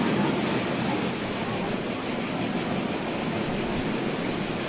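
Steady wash of ocean surf on a beach, with insects trilling in a high, even band over it. The trill pulses rapidly for a couple of seconds in the middle.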